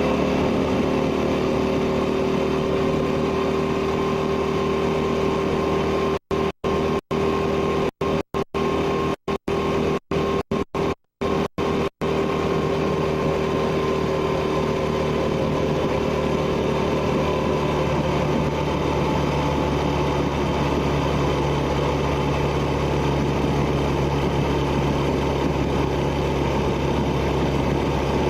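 1971 Honda Dream 250's twin-cylinder engine and exhaust running steadily at cruising speed, heard from a camera mounted on the motorcycle while riding. The sound drops out briefly about a dozen times between roughly six and twelve seconds in, as if the tape recording skips.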